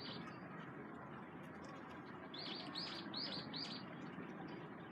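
Small bird chirping: a single note at the start, then a quick run of four chirps about two and a half seconds in, over steady background noise.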